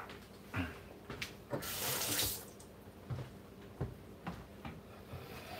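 A kitchen tap runs briefly, a short hiss of water about two seconds in, with scattered small clicks and knocks around it.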